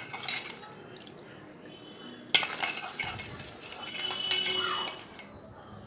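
Steel spoon stirring liquid in a stainless steel bowl, clinking and scraping against the sides as the sweetener is dissolved, with sharper knocks at the very start and about two seconds in.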